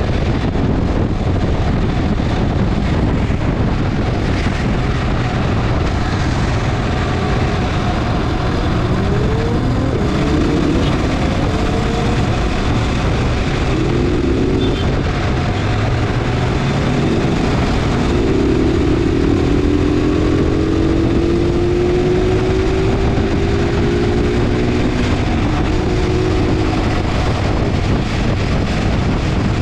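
Motorcycle engine running at highway speed under steady wind noise on the microphone. The engine note climbs in pitch several times as the bike accelerates, most plainly in the second half.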